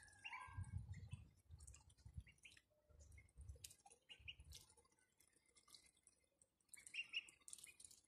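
Ducklings drinking from a shallow bowl of water: faint dabbling splashes and bill clicks, with a few soft peeps near the start and again about seven seconds in.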